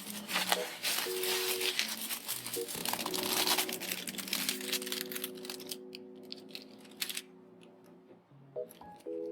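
Packaging crinkling and tearing as it is unwrapped, dense for the first half and thinning to a few scattered crackles after that, over soft background music.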